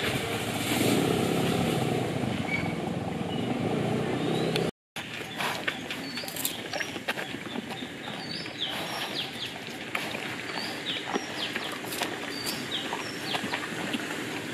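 Outdoor ambience: a steady engine-like hum for the first few seconds, then, after a short break in the sound, birds chirping over and over in short falling calls, with scattered sharp clicks.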